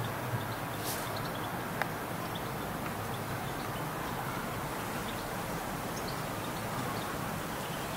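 Steady low rumble of distant urban traffic, with a few faint high chirps and small ticks over it and one brief hiss about a second in.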